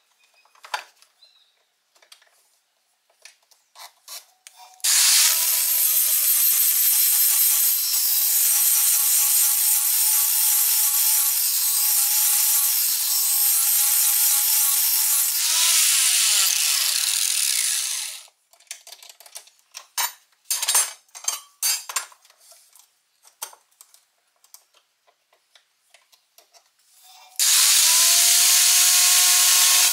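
Angle grinder grinding the edge of a steel lawn mower blade held in a sharpening jig. It runs for about thirteen seconds, then spins down with falling pitch. Clicks and clanks of handling the blade and jig follow, and near the end the grinder starts again, its pitch rising as it spins up.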